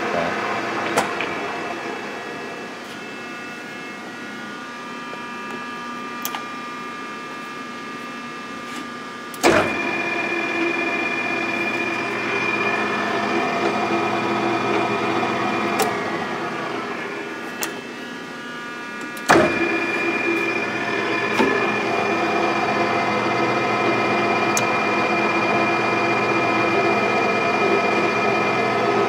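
South Bend G-26T engine lathe running with a steady multi-tone whine. It is switched on with a sharp clunk about ten seconds in, stops near sixteen seconds and winds down with falling pitch, then is switched on again with a clunk near twenty seconds and runs on.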